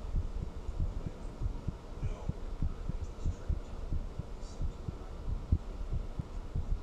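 A human heartbeat recorded close up: a steady run of short, low thuds repeating several times a second.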